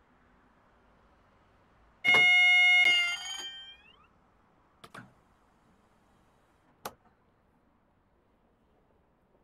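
A loud pitched tone holding steady for about a second, then fading with its pitch sliding upward. Two sharp clicks follow a couple of seconds apart.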